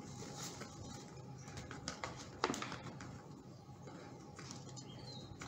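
Faint rustle of flour pouring from its bag into a plastic measuring cup and the bag crinkling, with a few soft clicks.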